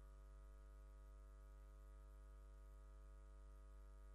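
Near silence, with only a faint, steady electrical mains hum.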